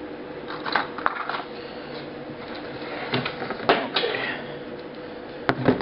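Packaging being handled: scattered clicks, knocks and rustles from a clear plastic case of TIG torch parts and a cardboard accessory-kit box, with two sharp clicks near the end, over a steady faint hum.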